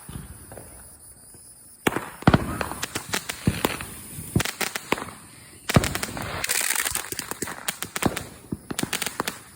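Fireworks going off: about two seconds in, a string of sharp bangs and pops begins, with a dense spell of rapid crackling pops in the middle and scattered pops continuing near the end.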